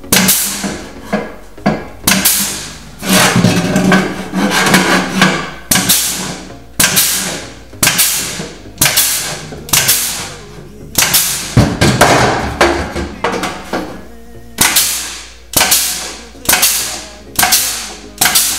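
A pneumatic hole punch and joggler punching a row of holes in the steel flange of a car's inner sill panel. It goes one stroke after another, about one a second and sometimes faster. Each stroke is a sharp hit that fades over about half a second.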